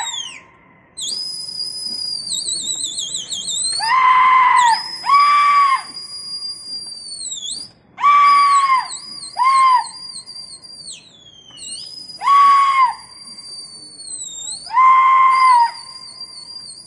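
Pigeon fanciers calling to their flocks: a long, high, warbling whistle that drops in pitch at the end of each breath, and six short, loud, high-pitched shouted cries.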